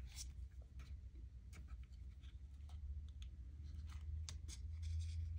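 Light, irregular clicks and scratches of tiny beads and a small ball-head pin being fiddled with by hand on a work surface, over a steady low hum.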